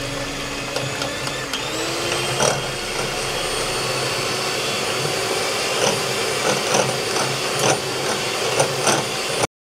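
Jaipan electric hand mixer running steadily, its twin beaters whipping egg whites to a foam in a glass bowl. The motor's hum rises in pitch about a second and a half in, and a few short clicks come from the beaters touching the glass.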